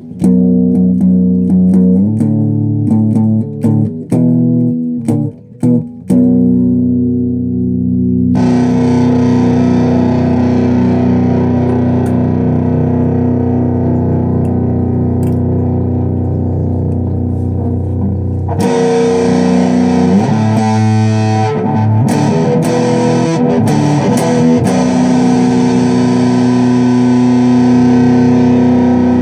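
Electric guitar played through a distorted amplifier. First come choppy chords broken by short gaps, then continuous riffing that turns brighter and harsher from about eight seconds in.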